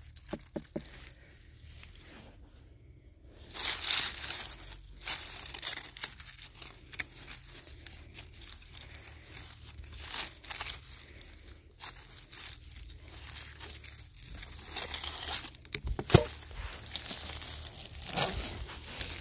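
A few light knocks of fingers on a watermelon at the start, then rustling of the vines and leaves and a knife cutting through them, with one sharp crack about three quarters of the way through.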